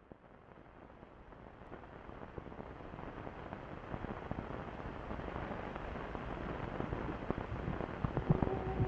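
Dense crackling noise fading in from silence and growing steadily louder, with a steady low tone coming in near the end.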